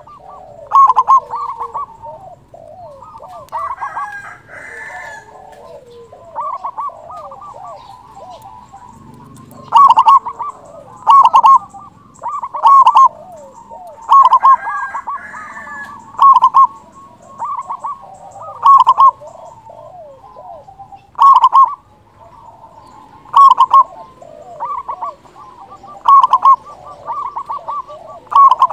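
Zebra dove (perkutut) cooing: loud bursts of its rapid rolling coo come every second or two, with softer cooing notes in between.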